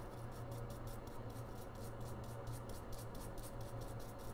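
Light rhythmic scratching, about five or six strokes a second, from scrubbing on an iPhone logic board, over a steady low hum.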